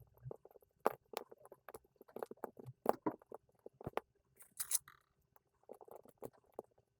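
Kinetic sand being cut and squished, giving a run of small, irregular crunching and crackling sounds, with a brief scratchy hiss about four and a half seconds in.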